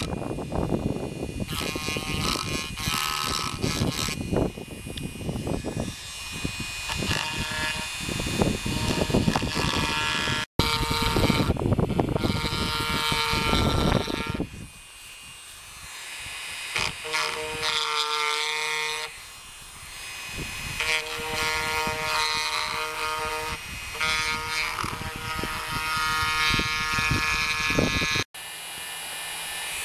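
Dremel rotary tool running at high speed with a pointed bit, grinding down cured Flex-Tec HV epoxy filler at a wooden window-frame joint. A steady high motor whine under rough grinding noise that swells and fades as the bit bites into the epoxy and wood; the grinding is heavier in the first half and lighter later.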